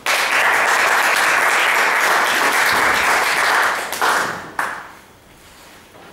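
An audience applauding. It starts suddenly, holds for about four seconds, then dies away with a few last claps.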